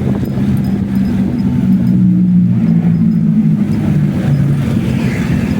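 Motorcycle engine running under way, a steady low drone whose pitch drifts slightly as the speed changes, over road and wind noise.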